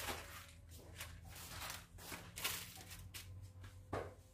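Plastic packaging being handled: short, irregular rustles and crinkles over a faint steady low hum, with one louder knock near the end.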